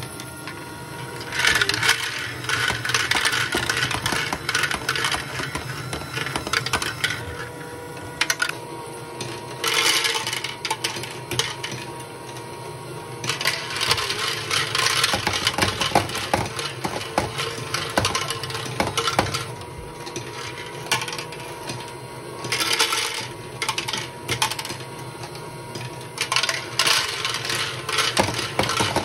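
LEGO Technic Great Ball Contraption cement-mixer module running: plastic balls rattle and clatter through the turning mixer barrel and drop out, in several bursts, over a steady whir of the plastic gear drive.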